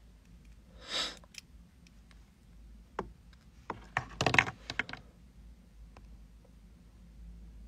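Scattered light clicks and taps, with a short hiss about a second in and a louder cluster of knocks about four seconds in, over a low steady hum.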